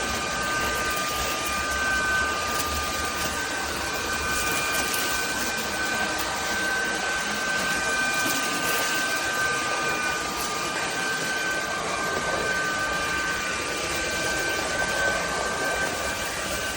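Cordless stick vacuum cleaner running steadily: a motor hum and airflow hiss with a thin, high whine held at a constant pitch.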